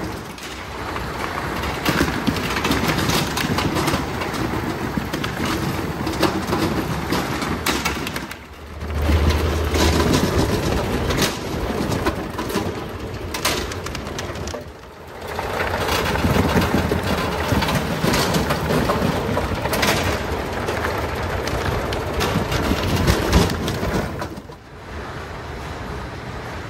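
Potatoes rattling and knocking as they tumble over a powered roller conveyor and along a belt conveyor, over the steady running noise of the handling machinery, with many sharp knocks.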